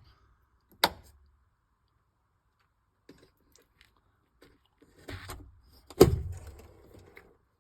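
A sharp click about a second in, then some handling noise and a single heavy thunk about six seconds in that dies away over about a second.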